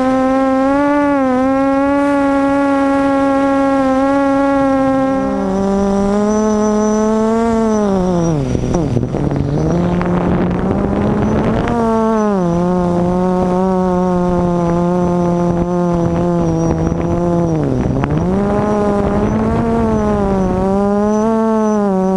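QAV400 quadcopter's brushless motors and propellers whining in flight. The pitch steps down about a quarter of the way in, sags twice to a low hum with a rush of air as throttle is cut, and climbs back each time power is added.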